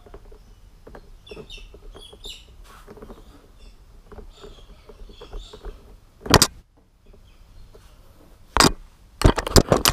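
Soft handling of vinyl as notched tabs are pressed down onto the back of a door panel board, then loud sharp knocks about six and eight and a half seconds in and a quick run of them near the end.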